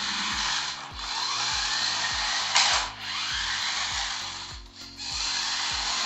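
Toy RC monster truck's small electric drive motors and gears whirring in spurts of a second or two as it drives and turns, the pitch swelling and falling with the throttle. Background music with a steady beat runs underneath.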